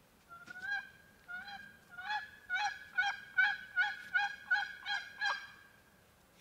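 Turkey call sounding a series of hen yelps: about a dozen two-toned notes that break from high to low, coming faster and louder toward the middle. The calling is meant to get a gobbler to answer.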